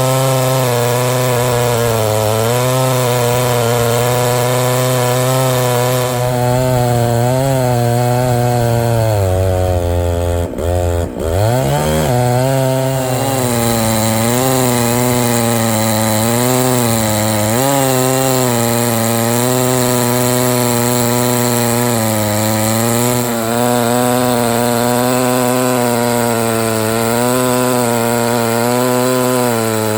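Stihl MS660 chainsaw (90cc powerhead) ripping along a log through a 64-inch lo pro milling bar, its engine working hard under load with a steadily wavering pitch. About ten seconds in the engine speed drops sharply, then picks up again.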